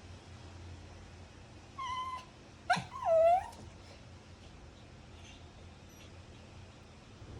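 Dog whining: two short high-pitched whines, the second louder, bending down in pitch and back up.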